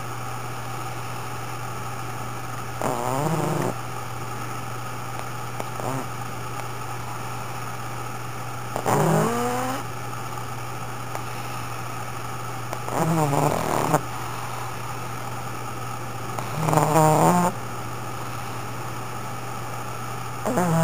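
A pug snoring loudly, one snore about every four seconds over a steady low hum.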